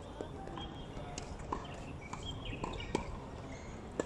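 Outdoor hard tennis court ambience: scattered sharp knocks at irregular intervals, with a few brief high squeaks in the middle.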